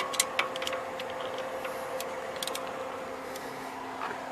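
Light metal clicks and clinks of a 14 mm socket and breaker bar being fitted onto an alternator bolt, a few in the first second and a few more about two seconds in, over a faint steady hum.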